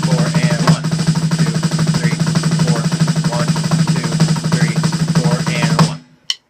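Snare drum played in a fast, loud, continuous roll that stops abruptly near the end.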